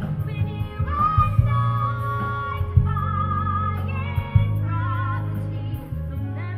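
Live musical-theatre performance: a female voice sings held notes with wide vibrato over a sustained orchestral accompaniment.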